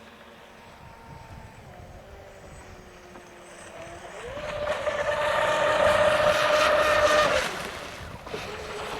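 Radio-controlled model speedboat motor whining across the water. It is faint and steady at first, climbs in pitch and gets loud at about four seconds as the boat speeds up, holds for about three seconds, then drops away.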